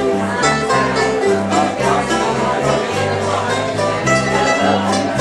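Acoustic bluegrass jam: upright bass, acoustic guitar and other picked strings playing a tune together, the bass stepping to a new note about twice a second.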